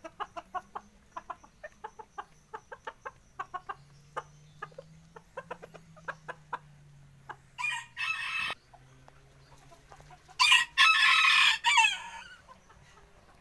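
Bantam chickens clucking in quick, short notes, several a second. Past the middle a rooster crows twice: a short crow, then a longer, louder one near the end.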